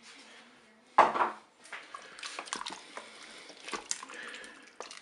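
Wooden spoon stirring white beans, carrots and peeled tomatoes in the cooking bowl of a Cookeo multicooker: many small scrapes and knocks against the bowl with wet sloshing, and one louder knock about a second in.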